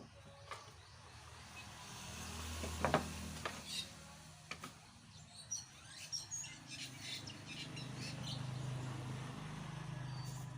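Birds chirping, with a few sharp knocks, the loudest about three seconds in, over a low hum that swells twice.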